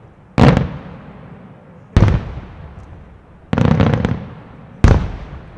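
Aerial firework shells bursting: four loud bangs about a second and a half apart, the third a quick rattle of several reports, each trailing off in an echo.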